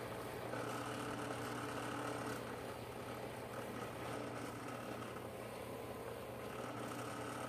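Drill press running a cloth buffing wheel while a brass carbide lamp part is polished against it: a steady motor hum under the whir of the spinning wheel. A higher tone comes and goes as the part is worked against the wheel.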